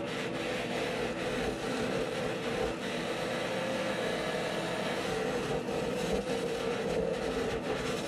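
A lathe running steadily while a flat steel scraper held on the tool rest shaves a spinning pink foam blank, making a continuous rasping scrape.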